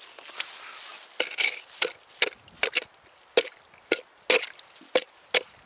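Blue plastic scoop knocking and scraping at slush ice in a water-filled ice hole, clearing it out. About a dozen sharp knocks, roughly two a second, starting about a second in.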